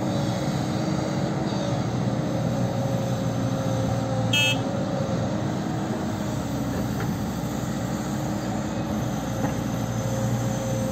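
Diesel engines of a JCB tracked excavator at work and a Sonalika MM-35 tractor idling beside it, a steady drone with a few held tones. About four seconds in there is a brief high squeak.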